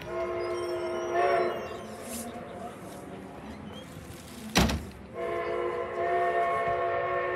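Steam locomotive whistle blowing: a blast of about a second and a half, then a sharp knock about four and a half seconds in, then a second long blast that holds on.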